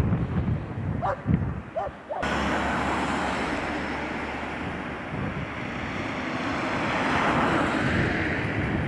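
Wind buffeting the microphone: a steady rushing noise that starts abruptly about two seconds in and swells slightly near the end. Before it, a few short high-pitched calls.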